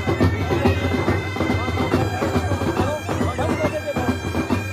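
Army pipe band's bagpipes playing a tune over their steady drone, with crowd voices mixed in.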